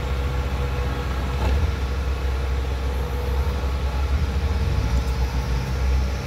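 Kubota DC70 combine harvester's diesel engine running steadily with a deep rumble, as the machine works its way down a steep bank onto a steel barge.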